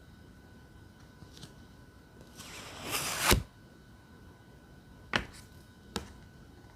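Tarot cards handled close to the microphone: a short rustle that builds into a sharp snap about three seconds in, followed by two crisp taps.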